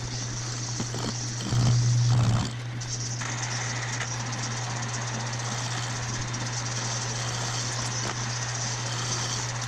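Metal lathe running, its spinning chuck and motor giving a steady hum, with a louder stretch about two seconds in.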